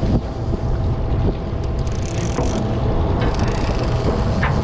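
Party boat's engine running steadily on the fishing spot: a continuous low rumble with a thin, steady hum over it.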